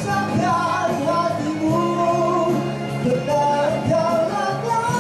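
A man singing live into a microphone through a PA system, holding long notes over accompanying music.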